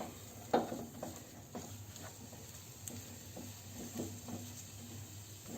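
Spatula stirring mashed potato filling as it fries in a pan: scattered soft scrapes and light taps against the pan, over a faint steady low hum.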